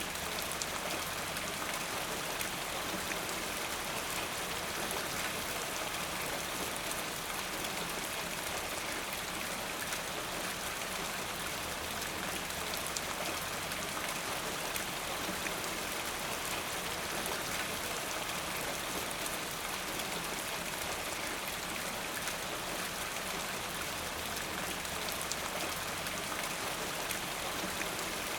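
Steady rainfall, an even hiss with many fine drop taps on a hard surface.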